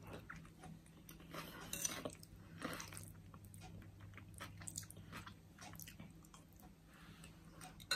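A person eating a salad of tuna and boiled egg from a spoon: quiet, irregular chewing and biting, louder about two and three seconds in, with a few small clicks.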